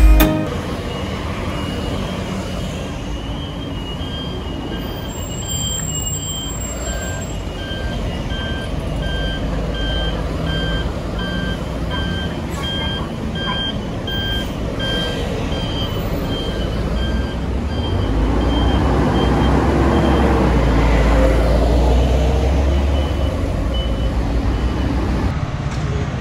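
City street traffic with buses and scooters running. A high electronic warning beep repeats about every half second through most of it, and a heavy engine rumble grows louder a little past the middle.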